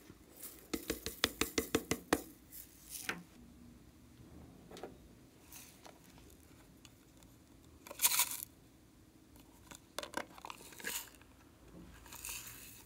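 Sequins and small plastic bits dropping onto a glass tray. A quick run of light clicks comes about a second in, then scattered ticks and a brief rustling pour about eight seconds in.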